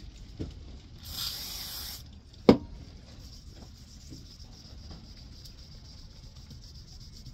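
WD-40 aerosol can sprayed once for about a second, hissing, to oil the fine side of an oilstone, followed by a sharp knock as the can is set down on the wooden bench.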